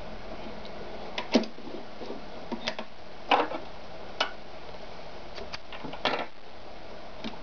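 Scattered clicks and short rustles of hands working at an Ideal 730 sewing machine while it stands still: fabric being drawn out from under the foot and thread cut with scissors. The sharpest click comes just over a second in, and a longer rustle about three seconds in.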